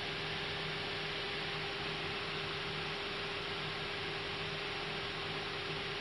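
Steady hiss with a low, even hum: the background noise of an Airbus A320 cockpit on the ground.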